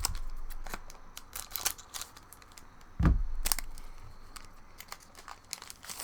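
Foil trading-card booster pack wrapper crinkling and tearing as it is opened by hand, with scattered crackles, and two dull thumps, the louder about three seconds in.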